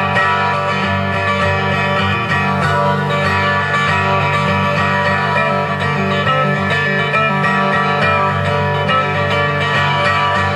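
Martin acoustic guitar playing a solo instrumental piece live.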